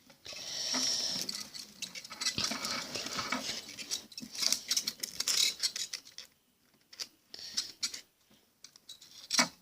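Hands handling VHS magnetic tape and a small piece of Scotch tape: scratchy rustling and light clicks in irregular spurts, with quiet gaps near the end.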